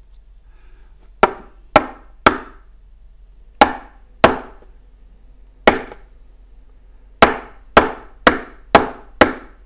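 Eleven sharp knocks as a union rim cylinder lock is rapped to shake loose a pin stuck in chamber 5, coming in uneven groups with a run of five near the end.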